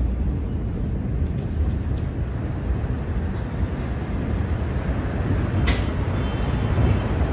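Deep, steady rumble following the Beirut port explosion, with a short sharp crack late on.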